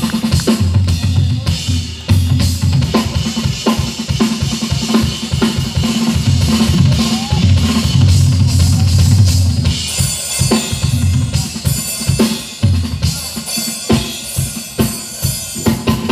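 Tama drum kit played live in a fast, busy pattern of bass drum, snare and cymbal hits. About ten seconds in, the bass drum thins out and the cymbals come forward.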